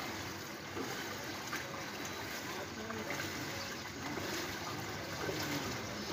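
Steady outdoor ambience over a flooded street: an even wash of noise, with faint sounds of water.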